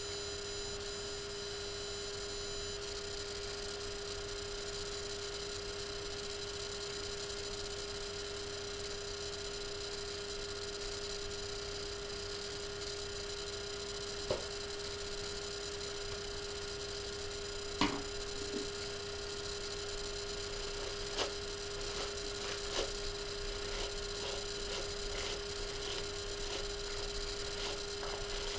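Steady electrical hum with a high whine in the recording. From about halfway through, a few faint clicks and rustles come in, more often near the end, as a detangling brush is worked through dry hair.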